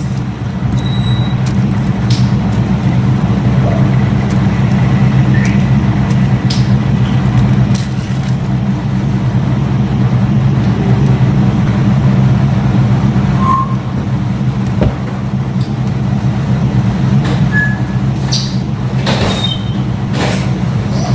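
Steady low machine hum, with a few scattered light clicks and clinks on top.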